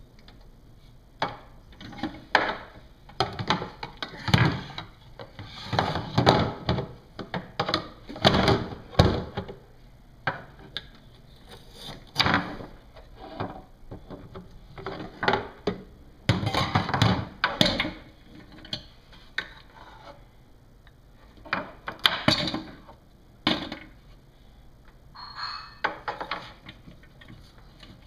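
Toy dishes and play food knocking and clattering against a play kitchen and its metal sink as a small child handles them: irregular runs of sharp knocks with short pauses between.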